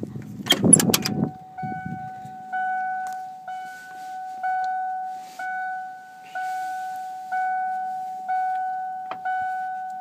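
1995 Ford F-250's 7.3 L Powerstroke V8 diesel cranking on the starter without catching, cut off about a second in with a brief clatter; the hard start is put down to a failed glow plug relay. Then the truck's warning chime dings steadily, about once a second.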